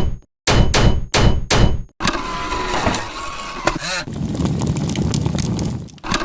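Cartoon factory sound effects. Four sharp, evenly spaced clanging strikes come about three a second, then a steady clattering machine noise with a whirring tone runs for about four seconds before cutting off near the end.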